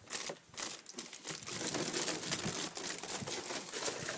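Flexible aluminium foil duct, 8-inch, crinkling and crackling continuously as a miniature dachshund puppy scrambles through it.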